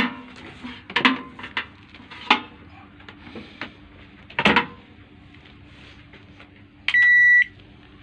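A microwave oven being handled and set going. There are several knocks and clatters as it is moved, then a steady low hum, and one loud half-second beep from its control panel about seven seconds in.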